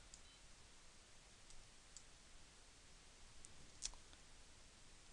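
Near silence with a few faint, short computer mouse clicks, the sharpest a little under four seconds in.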